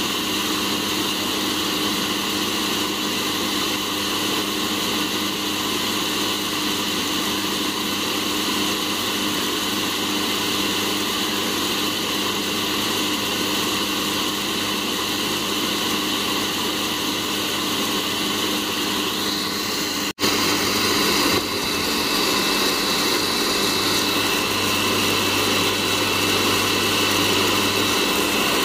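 Cafemasy fluid-bed hot-air coffee roaster running, its fan blowing a steady whir that keeps the beans tumbling in the glass roasting chamber. The sound breaks off for an instant about two-thirds of the way in and comes back slightly louder.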